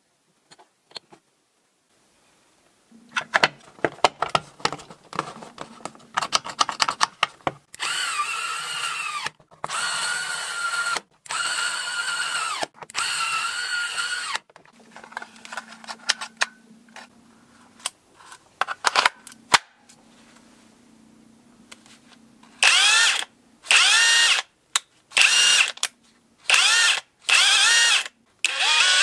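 Small cordless screwdriver whirring in several short runs as it drives the screws of a rebuilt battery pack's case, with handling clicks before. Near the end, the DCA ADPB280 cordless impact wrench runs in a string of short trigger bursts, its whine rising at each start as the motor spins up: a function test of the repaired wrench.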